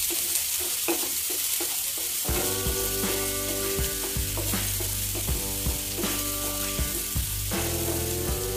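Chopped onion sizzling as it sautés in hot oil in a nonstick frying pan, while a wooden spatula stirs it, scraping and tapping against the pan again and again.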